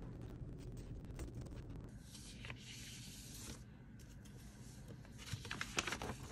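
Pen scratching on paper, then, from about two seconds in, loose sheets of paper rustling as they are slid and turned over, with a few crisp crinkles near the end.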